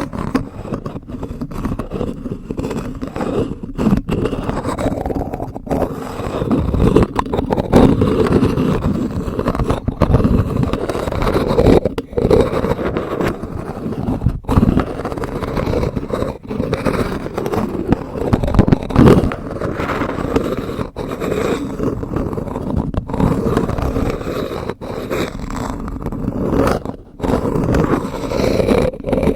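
Wooden spoon scraping and rubbing in continuous strokes, with short breaks every two seconds or so.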